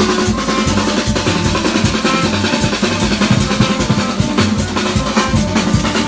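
A marching street band's large barrel drums beaten in a fast, dense rhythm.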